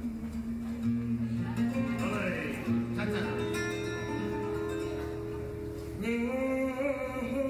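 Live flamenco music from acoustic guitar and cello, with low notes held for several seconds and a voice singing, which comes in strongly about six seconds in.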